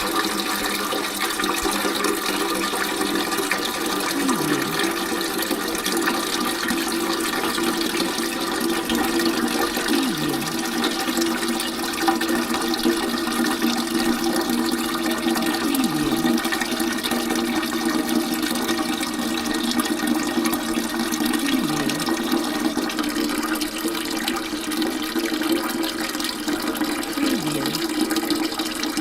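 Water pouring in a steady, continuous stream into a bucket. A brief low falling tone recurs about every six seconds.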